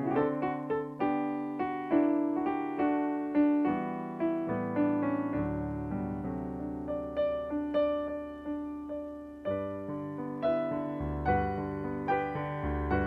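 Solo piano playing, with notes struck one after another and fading over held low notes.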